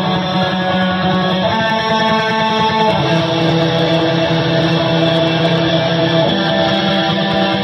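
Black metal band playing live and loud: distorted electric guitars hold sustained chords over drums, the chord shifting about three seconds in and again near the end, heard through a phone recording from the crowd.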